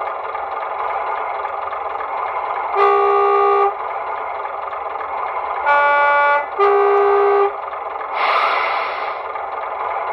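Sound decoder in a model GWR diesel railcar, played through its small onboard speaker: the diesel engine idles steadily while the horn sounds three short toots, the middle one lower in pitch, followed about eight seconds in by a short hiss.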